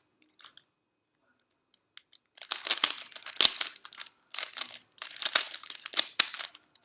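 Plastic V-Cube puzzle cube being turned by hand: quick runs of clicking and rattling as the layers snap round, starting about two and a half seconds in after a nearly quiet start.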